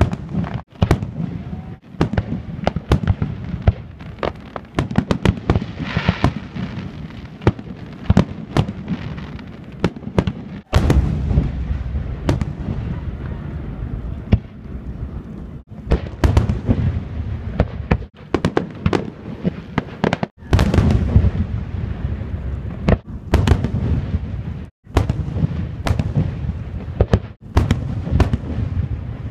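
Fireworks display: aerial shells launching and bursting in quick succession, many sharp bangs over a continuous low rumble. The sound breaks off briefly several times.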